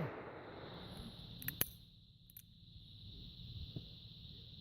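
The echo of a revolver shot dying away, then two sharp clicks about a second and a half in and a fainter click a little later, over a faint steady high insect drone.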